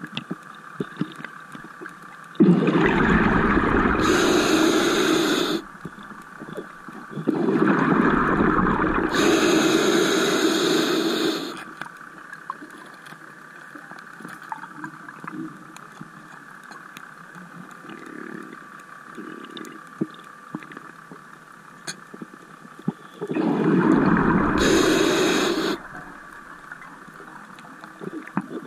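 Scuba diver's exhaled breath bubbling out of the regulator underwater: three long bursts of rumbling bubbles, each about three seconds, with quieter stretches between them.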